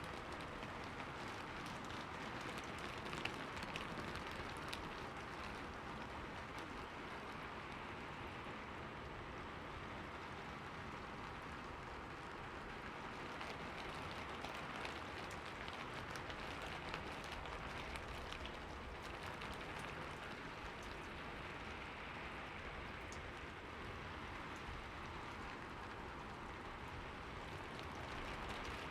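Steady rain falling, an even hiss with scattered close drops ticking.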